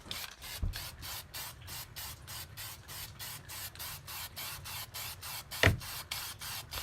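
Aerosol spray can hissing in quick, even pulses, about five or six a second, with a couple of dull knocks.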